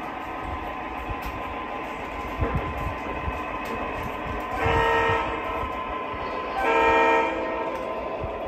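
O scale model freight train rolling along the track with a steady rumble, while its electronic sound system gives two short horn blasts, about halfway through and again two seconds later.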